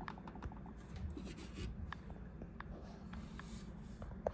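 Faint handling noise: soft rubbing and scratching with scattered light clicks over a steady low hum, and one sharper click near the end.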